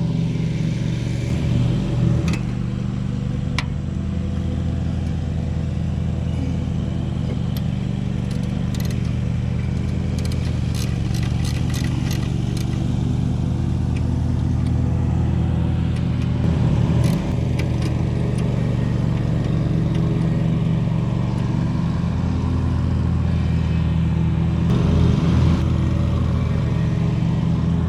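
Lawn mower engine running steadily, its pitch shifting briefly a few times, with a few faint sharp taps.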